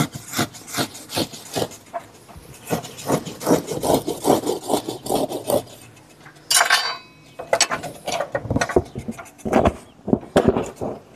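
Hand scraping of tyre rubber clamped in a vise with a steel blade: repeated rasping strokes, about two or three a second, as the rubber edge is shaved thin. A sharper, higher scrape comes about six and a half seconds in, then the strokes resume.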